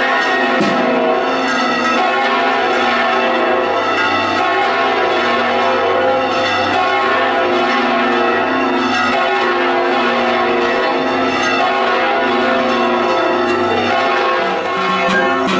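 Church bells ringing in a continuous peal, many bell strokes overlapping and ringing together.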